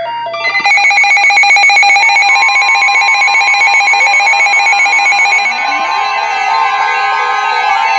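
A loud electronic alert tone sounds continuously with a rapid pulse, several pitches at once. A few lower gliding tones come in after about four seconds.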